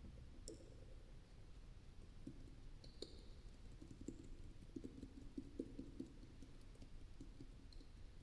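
Faint scattered taps and clicks made by hand close to the microphone, with a quick run of soft low taps in the middle.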